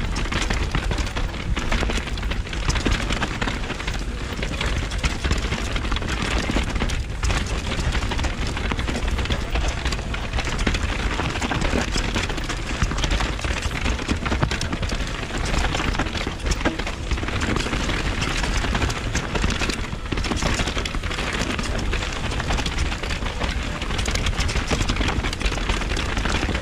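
Wind buffeting an action camera's microphone, with the steady rattle and knocks of a mountain bike's tyres, chain and suspension over a rocky, rooty trail on a fast descent.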